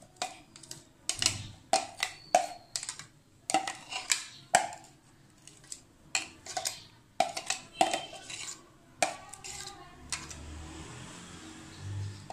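A metal spoon knocking and scraping against a clear plastic chopper bowl and a ceramic bowl while chopped vegetables are scooped out: an irregular run of sharp clinks. Over the last couple of seconds this gives way to softer scraping as the spoon stirs the chopped salad.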